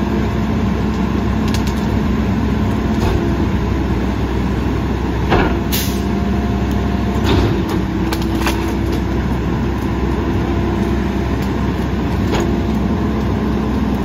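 Mack LE rear-loader garbage truck running steadily, its hydraulic packer cycling to compact tree branches in the hopper. The engine tone shifts partway through, and several sharp knocks and cracks stand out, the loudest about five and a half seconds in.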